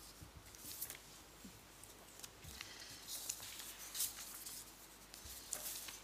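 Faint, scattered rustles and light clicks of small objects being handled, over quiet room tone; the loudest click comes about four seconds in.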